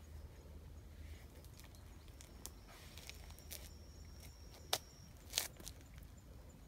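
Quiet outdoor ambience with a low rumble and a scatter of short sharp clicks, two louder ones close together about five seconds in. A thin high whistle is held for about three seconds in the middle.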